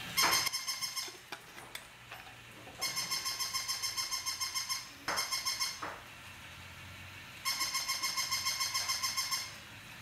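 Battery-operated walking toy puppy giving out its electronic sound: a rapid stuttering tone of about seven pulses a second, in runs of one to two seconds. Between the runs there are a few sharp clicks and a faint low hum.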